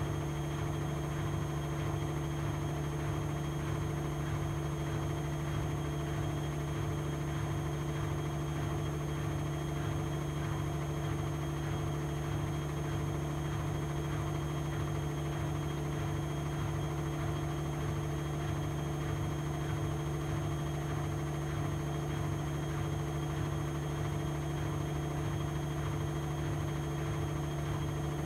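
Vestel CMI 9710 front-loading washing machine on its full 800 rpm spin, running at a steady speed: an even motor and drum hum with a faint regular pulse.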